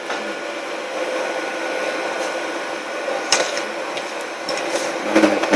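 Welding inverter's cooling fan running steadily just after the machine is switched on, a steady whir with a faint hum, and one click about three seconds in.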